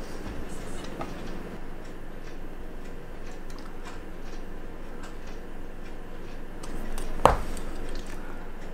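Small metallic ticks and light scraping of a steel blade working around the bezel ring of a stainless steel watch case, clearing glued crystal residue, with one sharp metal click about seven seconds in.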